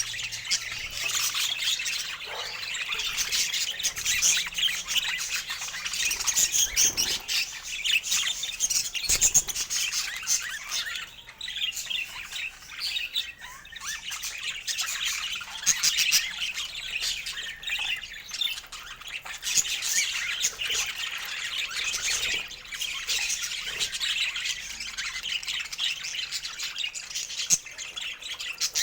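Budgerigars chattering and warbling without a break, a dense mix of quick chirps and harsh squawks.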